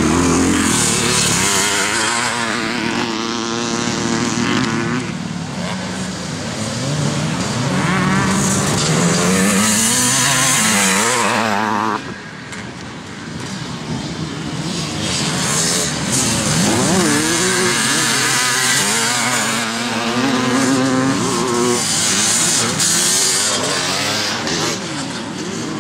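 Twin-shock motocross motorcycles racing on a dirt track, their engines revving up and falling away again and again as the bikes pass. The sound drops suddenly about twelve seconds in, then the engines build again.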